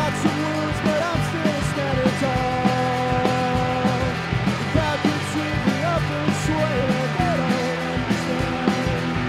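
A rock band playing live: electric guitar, electric bass and drum kit with a steady beat, and a male lead vocal singing held, bending notes over it.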